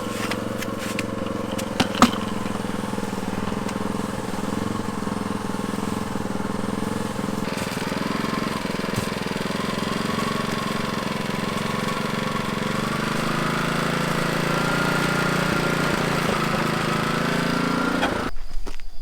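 Cement mixer running steadily, with two sharp knocks about two seconds in. The sound cuts off abruptly just before the end.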